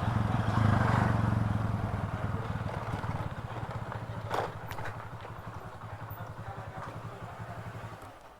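Motorcycle engine running as the bike slows, the rushing wind noise fading away. It then idles with an even throb and cuts off near the end.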